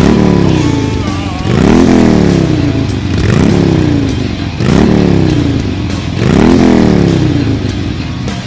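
Cruiser motorcycle engine revved repeatedly while standing still. There are about six throttle blips, one every second and a half or so, and each note rises sharply and then falls back.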